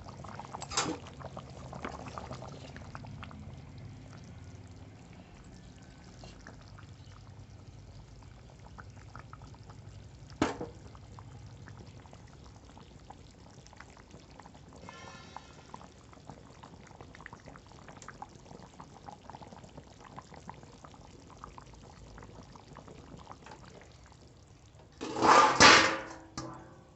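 Kitchen cooking sounds: liquid in a pot, faint and steady, with scattered small utensil clinks. There is a clatter at the start, one sharp clink about ten seconds in, and a louder burst of clattering near the end.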